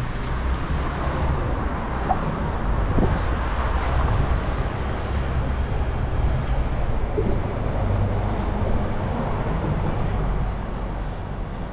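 City street traffic: vehicles passing with a steady low rumble and road noise.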